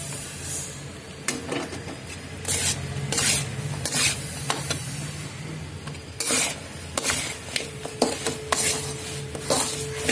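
A metal spatula stirring and scraping sticky jaggery-coated banana chips around a large metal pan, in short rasping strokes about once a second, over a low steady hum.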